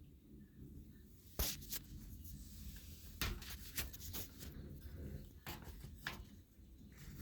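Handling noise: a scatter of about seven sharp clicks and rubs over a steady low rumble.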